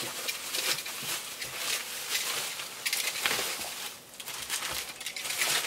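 Thin plastic bag crinkling and rustling as it is cut and torn open with a box cutter, a dense crackle that eases briefly about four seconds in.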